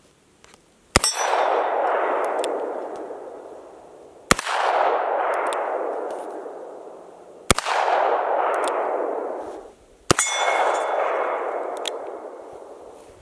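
Four shots from a Ruger .357 Magnum revolver, about three seconds apart. Each crack is followed by a long ringing tail that fades over two to three seconds.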